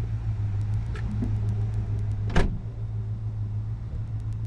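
Car engine idling with a steady low hum. A car door thuds shut about two and a half seconds in.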